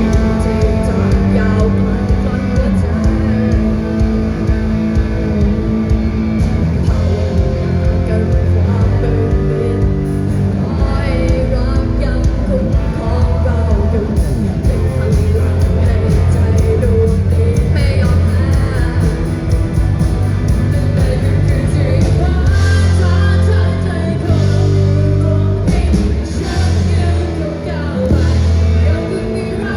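Live band playing a rock song with a singer, guitar prominent.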